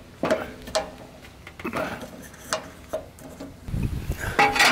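Scattered metal clicks and knocks from handling and fitting parts of a Weber Spirit II gas grill during assembly, with a louder clatter near the end.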